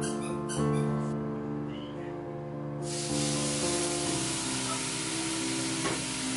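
Background music, then about three seconds in a loud, steady hiss and sizzle as a dark liquid seasoning is poured onto small dried sardines roasting in a hot frying pan, turning to steam.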